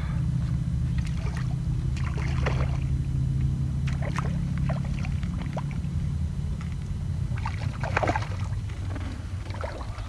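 Steady low drone of a running motor, with a few brief higher sounds over it.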